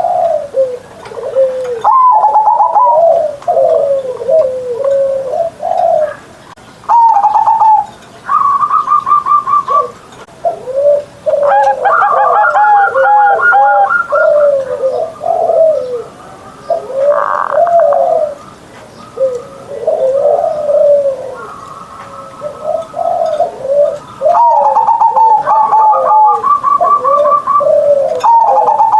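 Zebra dove (perkutut) cooing its song over and over: phrases of soft rolling coos, with a faster, higher trill of repeated notes coming in several times.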